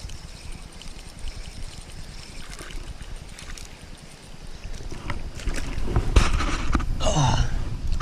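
Wind buffeting the microphone over running creek water, with scattered clicks. From about five seconds in, a louder rustling, rushing stretch builds, and just after seven seconds there is a short, voice-like sound that falls in pitch.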